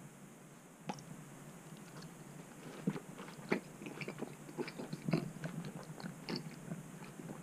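A person chewing close to the microphone: irregular clicks and smacks, several a second, starting about a second in.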